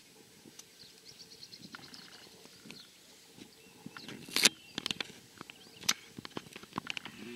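A sand wedge striking a golf ball off the fairway turf: one sharp click a little past halfway, followed by a few fainter clicks. Birds chirp faintly in the background.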